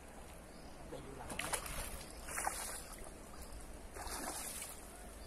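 A hooked pangasius catfish splashing at the water's surface close to the bank as it is played on the line, in three surges about a second or two apart.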